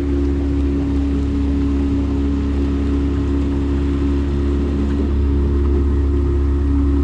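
A 9.9 horsepower outboard motor on a small jon boat running at a steady speed, a constant drone with a few held tones over a low rumble.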